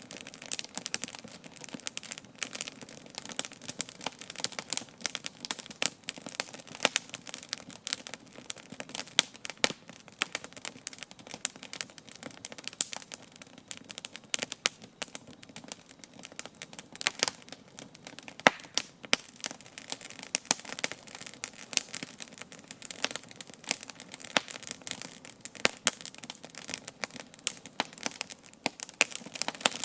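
Wood campfire burning, with dense irregular crackling and popping over a steady hiss of flames.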